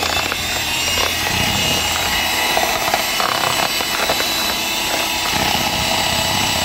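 Electric hand mixer running at a steady speed, its twin wire beaters whipping a thick cream cheese batter, with a constant high motor whine.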